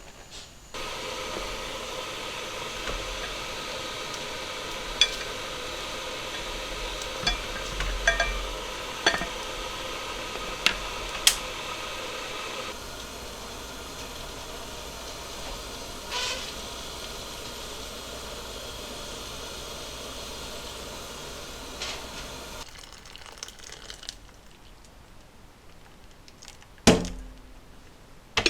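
Steady sizzling hiss of food cooking, with several sharp clinks of metal or dishes. The hiss stops abruptly about 22 seconds in, and a loud knock comes near the end.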